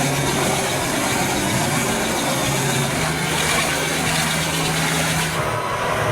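Large drum wood chipper running, its diesel engine holding a steady note under a loud rushing noise that eases shortly before the end.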